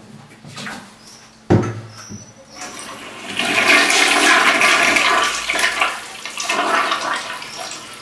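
A single knock about a second and a half in, then a household toilet flushing: a loud rush of water down the bowl that eases off near the end, carrying away sewage just tipped into it from a portable waste container.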